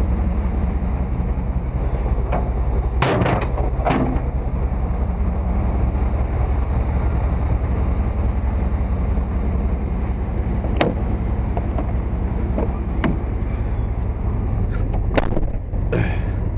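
A vehicle engine running steadily with a low rumble, with several sharp clicks and knocks at irregular moments.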